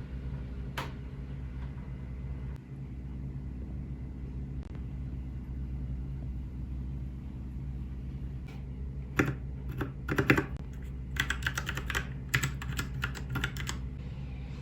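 Typing on an RK61 mechanical keyboard with brown switches: a quick run of keystroke clicks beginning a little past halfway, over a steady low hum.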